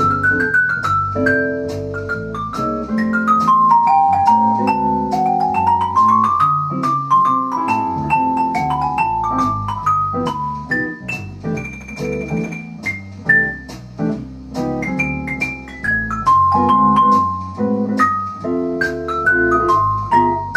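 Vibraphone played with mallets in a fast jazz solo line of separate ringing notes. It has a quick rising run about five seconds in and a long held high note near the middle.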